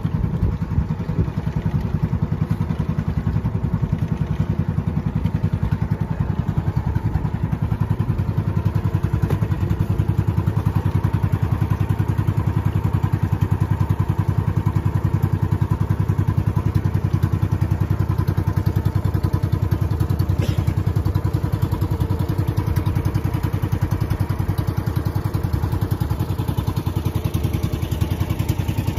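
Outrigger boat's engine running steadily under way, a low, rapidly pulsing drone that holds even throughout.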